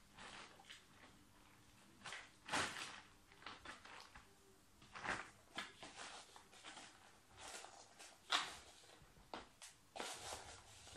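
Irregular rustling and scraping of potting soil and plastic as a plant is worked out of a black plastic nursery pot over a plastic tray, with a few sharp knocks of the pot.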